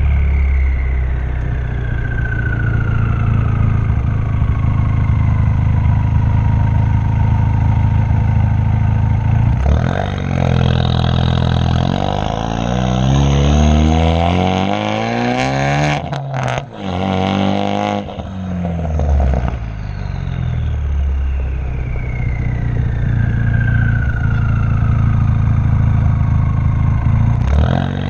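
Exhaust of a 2016 Ford Focus RS's 2.3-litre turbocharged four-cylinder, straight-through with a catless downpipe and the muffler deleted, running loud while driving: steady cruising, then accelerating hard about ten seconds in with the pitch climbing, a brief cut with a few sharp cracks around the middle, then settling back to steady cruising. A high falling whistle is heard near the start and again near the end.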